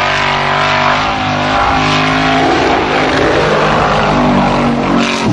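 Formula Offroad buggy's engine revving, a loud steady note with small dips in pitch, over a rushing noise as the tyres throw up loose dirt.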